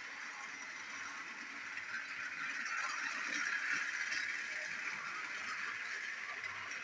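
Battery-powered Plarail Percy toy train's small motor and gearbox whirring steadily as it runs along plastic track, a little louder around the middle as it comes close.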